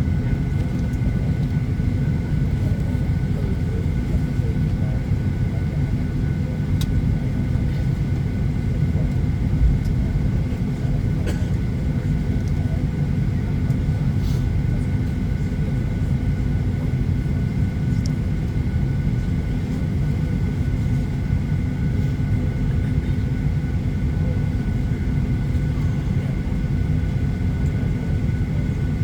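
Steady low cabin rumble inside a Boeing 737-800 during pushback, with its engines not yet started, overlaid by a few faint, steady whining tones and occasional light ticks.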